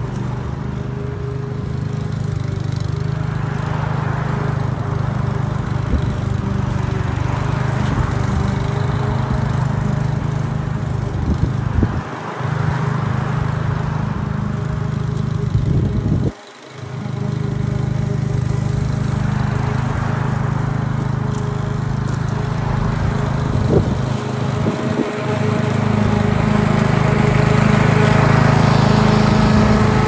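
Petrol walk-behind rotary lawn mower running steadily while mowing grass, growing louder near the end as it comes closer. Its sound drops out briefly about halfway through.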